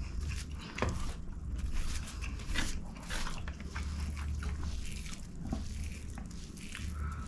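Close-up eating sounds: a bare hand mixing and squeezing rice on a wrapping sheet, with wet squishing and rustling, along with mouth chewing sounds. It comes as many short, irregular clicks and crackles.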